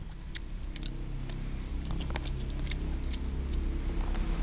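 Metal spoon scooping sticky rice from a paper wrapper, giving short sharp clicks and scrapes about twice a second, over a low engine-like rumble that grows louder toward the end.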